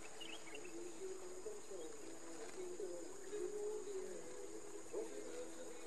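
Crickets trilling in the grass, one steady high continuous note. Beneath it runs a faint low wavering sound, and a few short high chirps come near the start.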